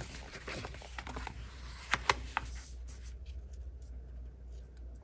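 Paper handling: sticker sheets and sticker-book pages rustling and scraping, with a few sharp ticks about two seconds in, over a low steady hum.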